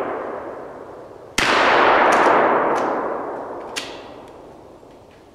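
A gunshot about a second and a half in, its echo rolling away through the woods for several seconds, after the fading tail of an earlier shot. A few light clicks follow as the gun jams.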